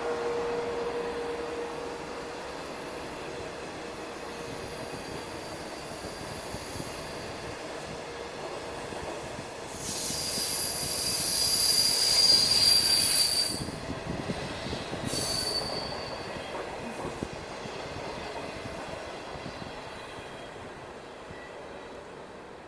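A passenger train of 25T coaches hauled by an SS8 electric locomotive running past, with steady rolling noise. About ten seconds in, the wheels give a loud high-pitched squeal lasting a few seconds, followed by a second short squeal, before the train's sound fades away.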